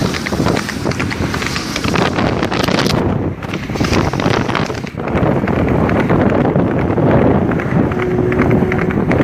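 Wind buffeting the microphone as it moves fast alongside a galloping horse, mixed with the horse's hoofbeats on the road.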